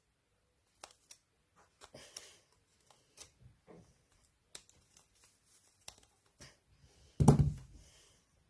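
Scattered small clicks and rustles of a Dyson V7 cordless vacuum's plastic parts being handled while the vacuum is switched off, with one louder knock about seven seconds in.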